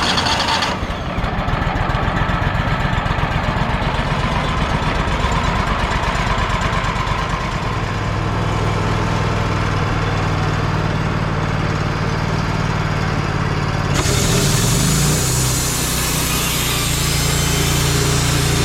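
Wood-Mizer portable sawmill's engine running steadily. About fourteen seconds in, the sound shifts abruptly and a hiss joins it.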